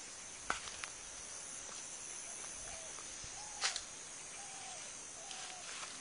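Quiet outdoor ambience: a steady high-pitched insect drone, with a few short, low calls in the second half and a few faint clicks.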